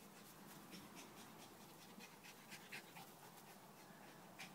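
Faint dog panting, a quick run of short breaths several times a second, against near silence.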